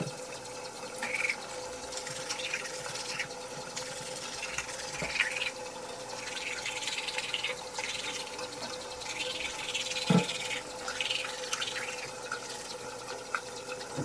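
Toothbrush scrubbing teeth in irregular short strokes, over a steady hum.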